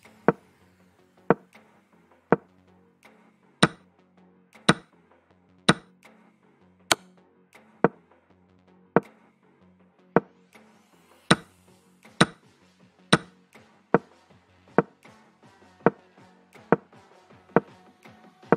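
Chess-board move sound effects: sharp wooden-sounding clicks about once a second, one for each move played, over soft background music.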